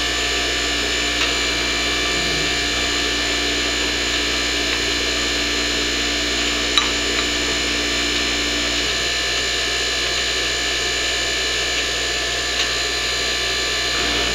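Powered hydraulic pump running steadily to drive a hydraulic press ram, a constant hum made of several fixed tones. About nine seconds in one of the lower tones drops away, and a couple of faint clicks come through.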